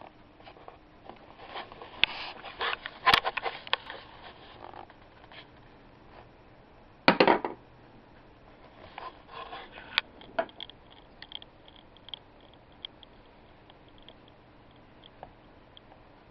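Balls on a toy tabletop pool table being knocked about by a cat: scraping, clicks of balls striking each other and knocks against the wooden rails, with the loudest knock and rattle about seven seconds in. Light ticking of balls follows near the end.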